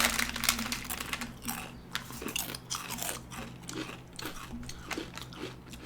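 Crunching and chewing of Bingo Mad Angles chaat masala chips: a quick run of irregular crisp crunches, loudest in the first second and a half and growing sparser and softer as the chips are chewed down.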